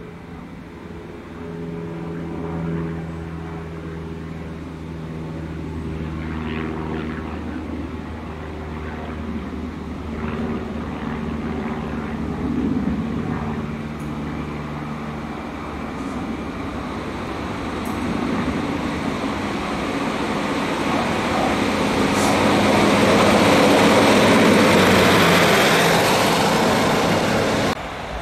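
Class 153 single-car diesel multiple unit approaching and passing: the droning underfloor Cummins diesel engine under a rising rumble of wheels on rail, loudest a few seconds before the end, then cutting off suddenly.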